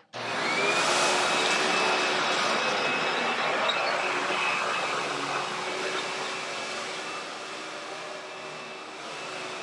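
Hoover WindTunnel upright vacuum cleaner switched on, its motor whine rising over the first second as it spins up, then running steadily as it vacuums up cat litter. The sound grows gradually quieter over the last several seconds.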